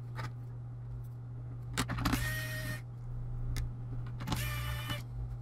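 Pen-style electric precision screwdriver's small motor whirring in two short bursts of under a second each, with a light click just before the first.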